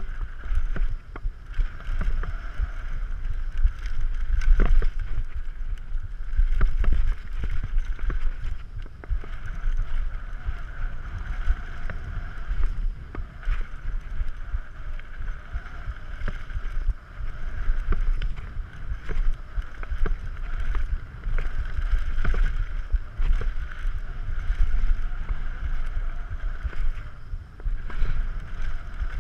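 Wind buffeting the microphone and knobby tyres rumbling over dry packed dirt as a Yeti SB6c carbon mountain bike descends a jump trail at speed, with frequent short sharp clatters from the chain and bike over bumps and landings.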